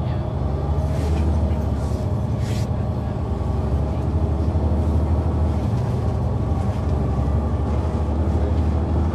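Caterpillar C-9 ACERT diesel engine of a 2004 Neoplan AN459 articulated transit bus running, heard from the rear seats inside the bus close to the engine: a steady low drone that gets a little louder in the first second or so.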